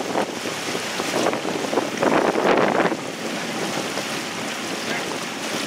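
Wind buffeting the microphone over the rush of water from a boat under way on choppy water, with a louder gust about two seconds in that lasts about a second.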